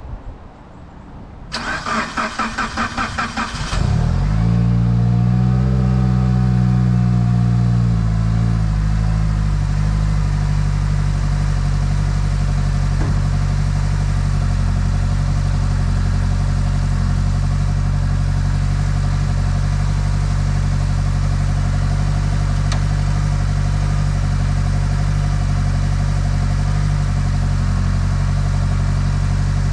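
Mitsubishi Lancer Evolution VIII's turbocharged 4G63 four-cylinder being started: the starter cranks for about two seconds, the engine catches about four seconds in, revs up and settles down over a few seconds, then idles steadily.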